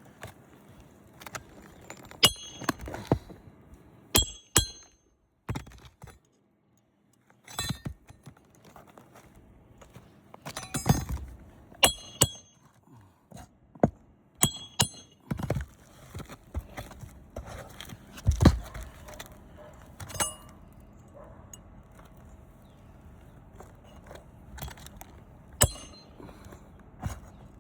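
Steel pry bar and snake bar working on asphalt roof shingles and their rusted nails: irregular sharp metallic clinks with a brief ring, mixed with duller knocks and thuds, one heavier thud past the middle.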